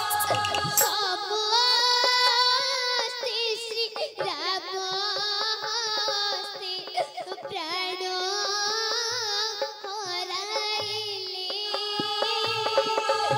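Stage music for the play: a high voice sings a long, wavering melody with heavy vibrato over instrumental backing.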